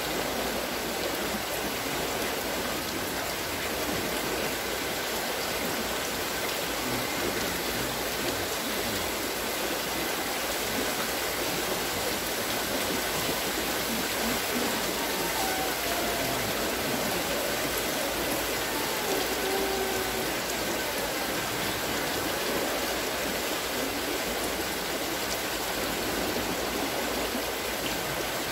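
Water pouring and splashing steadily from the buckets of a turning wooden water-scooping wheel, in an even rush.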